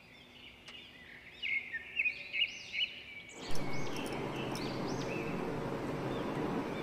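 Small birds chirping, repeated short rising-and-falling chirps in the background. About halfway in, a steady background noise comes up and carries on under the chirps.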